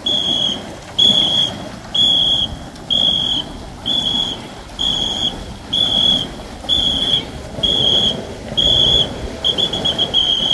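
Pacing whistle blown in short, even blasts about once a second, the cadence call that sets the paddle stroke for a Ngo long-boat crew. Near the end it breaks into a quick trill. A steady rush of background noise runs underneath.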